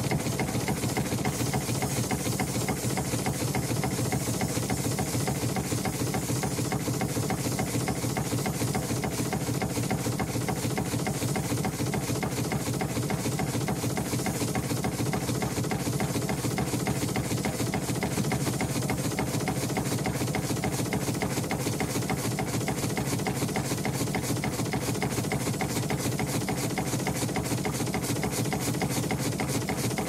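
Steam engine of the steam launch Victoria running steadily: a fast, even mechanical beat over a constant hiss.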